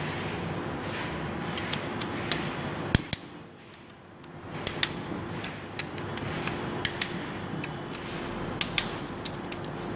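Sharp metallic clicks of hand tools, a torque wrench and socket, as cylinder head bolts on a Toyota 2GR-FE V6 are tightened to torque. The clicks come singly and in pairs at uneven intervals, the loudest about three seconds in, over a steady background hum.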